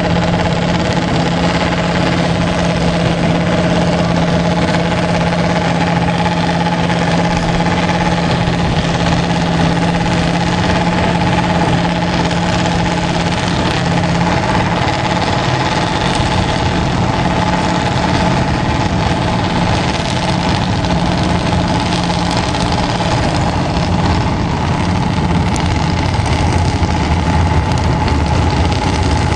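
Small dragster engines idling steadily, with a deeper engine note growing stronger near the end.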